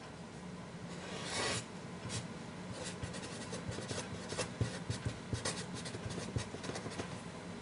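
Felt-tip pen writing on paper: a circling stroke, then a short handwritten phrase, heard as soft scratches with small taps of the pen tip.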